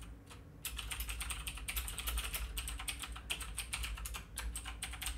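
Fast typing on a computer keyboard, keys clicking in quick succession, starting about a second in.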